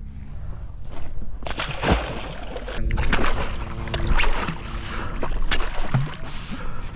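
Water splashing and sloshing alongside a fishing kayak, with repeated sharp splashes and knocks as a hooked tuna is gaffed at the side.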